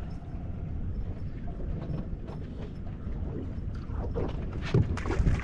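Steady low rumble of wind and water noise aboard a boat, with a few faint clicks and faint voices near the end.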